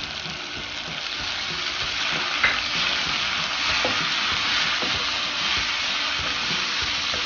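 Sliced onion and capsicum sizzling in oil in a frying pan over high flame with red chilli sauce just added, stirred with a spoon. The sizzle grows a little louder over the first two seconds, and a sharp clink of the spoon on the pan comes about two and a half seconds in.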